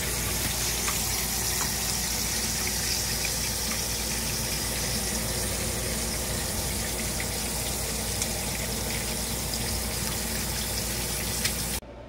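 Beef and broccoli simmering in sauce in a cast iron skillet: a steady sizzle with small scattered pops over a low hum, cutting off suddenly near the end.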